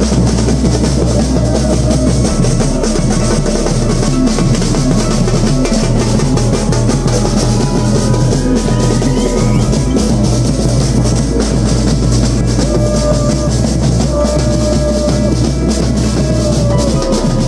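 Football supporters' drum section playing a steady beat on large surdo bass drums, struck with mallets and damped by hand, together with smaller drums played with sticks.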